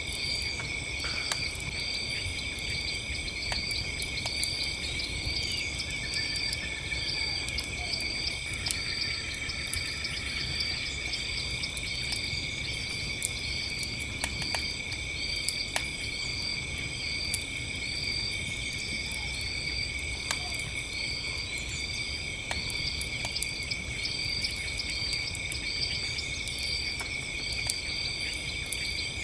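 Crickets chirping steadily in chorus, one of them in a rhythmic chirp repeating more than once a second, while a wood campfire crackles with scattered sharp pops over a low steady rumble.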